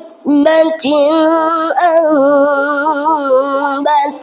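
A child's voice chanting Quran recitation in the melodic tilawah style. After a short breath, it holds a long, ornamented phrase on one breath, its pitch wavering and stepping up and down, and breaks off briefly near the end.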